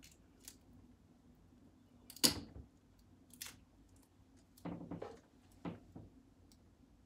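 Scattered clicks and knocks of small objects being handled, the loudest a sharp knock about two seconds in and a quick cluster of thuds around five seconds in.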